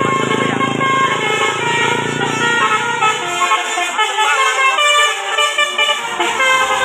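Bus telolet (basuri) multi-tone air horn playing a quick tune of changing notes, over a low engine rumble that drops away about three and a half seconds in.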